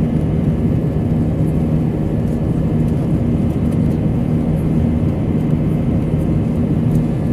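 Airbus A320 cabin noise just after takeoff, heard from a window seat beside the wing: the jet engines at climb power make a steady drone with an even low hum.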